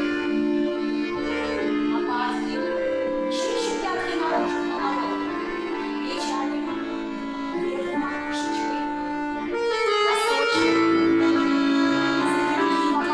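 Live accordion accompaniment for a folk dance barre exercise: a slow melody of long held notes over sustained chords that change every second or two.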